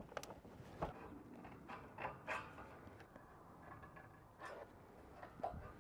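Faint, scattered clicks and light scrapes of thin sheet-metal roof trim being handled and worked by hand.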